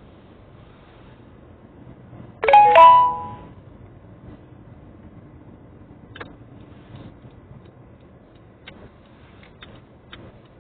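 A loud two-note chime about two and a half seconds in that rings on for about a second, over a low steady hum; a few faint clicks follow.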